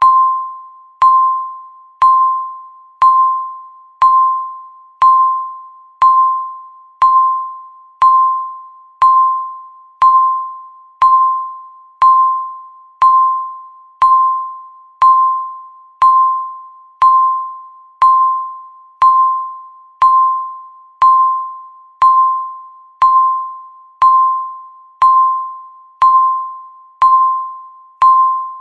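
Countdown timer beeping once a second: each beep is a single clear electronic tone that starts sharply and fades away before the next.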